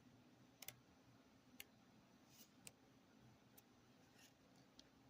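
Near silence with a few faint clicks and taps, scattered irregularly, as a tarot deck's paper guidebook is handled and leafed through.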